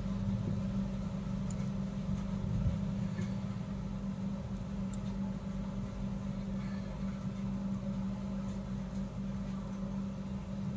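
Steady low mechanical hum, with a few faint clicks of metal knitting needles being worked.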